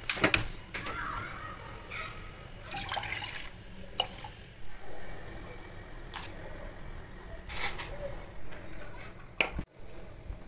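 Water and chopped ingredients going into a stainless steel saucepan: liquid splashing, with several sharp clinks and knocks scattered through.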